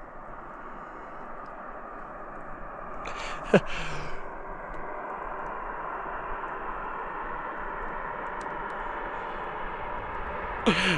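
A man's short breathy sigh-like vocal sound, falling in pitch, about three and a half seconds in, over a steady rushing noise that slowly grows louder.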